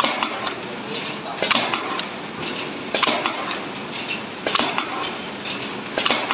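Cardboard dispenser on a horizontal flow wrap machine running in cycles: a sharp metallic clack and clatter about every one and a half seconds, over a steady mechanical running noise.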